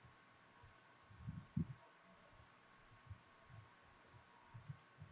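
A few faint computer mouse clicks, with a couple of soft low thumps about a second and a half in, over quiet room tone.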